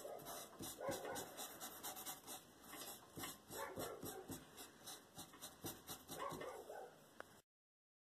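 Faint, repeated scratching of a bristle brush working oil paint onto canvas, with a few soft short cries underneath. The sound cuts off abruptly about seven seconds in.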